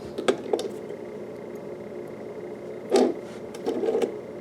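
Small plastic clicks and knocks of Lego pieces being handled as the minifigure's arms are moved and it is pressed into the bumper car: two light clicks in the first second, a louder knock about three seconds in, then a short cluster of clicks.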